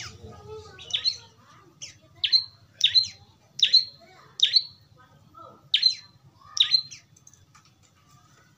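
Young prenjak lumut giving a run of about nine short, sharp chirps, each a quick falling note, repeated under a second apart and stopping near the end.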